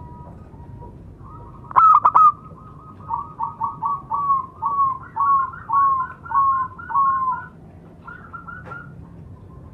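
Zebra dove (perkutut) singing: a loud burst of three sharp notes about two seconds in, then a quick run of about a dozen short, falling coos, two or three a second, with a few fainter notes near the end.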